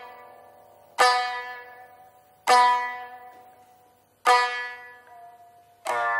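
Biwa, the Japanese short-necked fretted lute, struck with its plectrum: four single plucked strokes about a second and a half apart, each ringing out and fading before the next.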